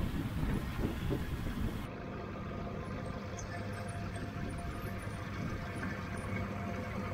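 Longtail boat engine running steadily underway, heard from the bow, with wind and water rush that drop away about two seconds in.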